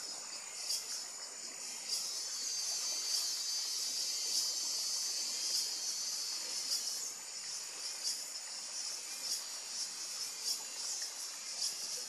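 A steady, high-pitched chorus of insects calling, with irregular short pulses.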